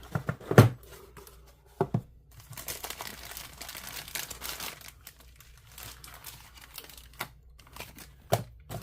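Sealed cardboard box being opened by hand: its seals tearing and packaging crinkling, with a stretch of rustling in the middle and a few sharp taps and knocks before and after.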